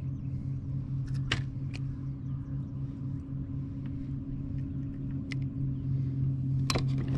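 Electric trolling motor running with a steady low hum at a constant pitch. A few light clicks and taps sound over it, about a second in, near two seconds, and near the end.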